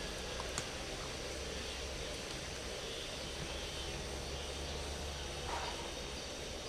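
Steady outdoor background noise with a constant low rumble and hiss, with a few faint clicks about half a second in.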